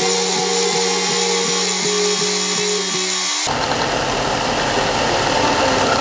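Ryobi belt sander running while a plywood disc is sanded against the belt. A steady hum pulsing about two and a half times a second gives way, about three and a half seconds in, to a rougher, noisier grinding.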